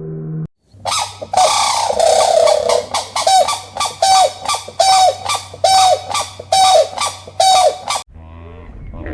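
Donkey braying: a long drawn-out first call, then about seven harsh rhythmic pulses, roughly three every two seconds, that stop abruptly near the end.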